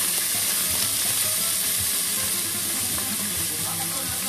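Diced onion sizzling as it fries in hot olive oil in a pot, a steady hiss.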